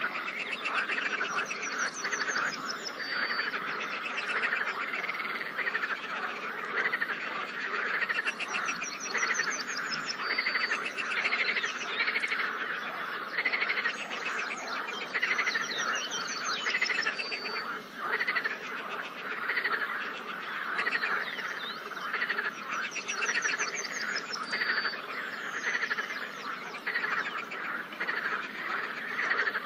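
A dense chorus of pond frogs croaking continuously, many rapid pulsed calls overlapping. A higher trill ending in a short held note repeats about every seven seconds above the chorus.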